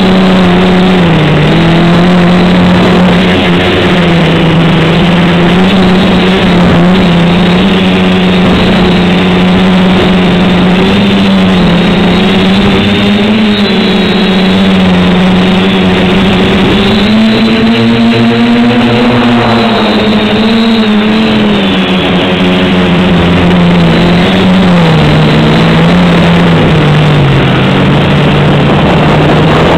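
The four brushless motors and propellers of an SK450 quadcopter, running with a loud, steady buzz as heard from the onboard camera. The pitch wavers up and down with the throttle and rises to a higher note for a few seconds just past the middle.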